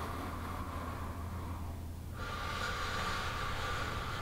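A man taking slow, deep breaths: two long, airy breaths with a short break about two seconds in, over a low steady hum.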